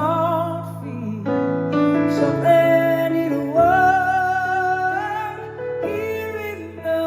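A woman singing a slow ballad with wide vibrato on held notes, accompanied only by piano chords.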